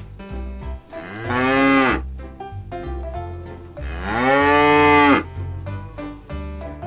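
A cow mooing twice: two long, arched moos, the second longer, over background music.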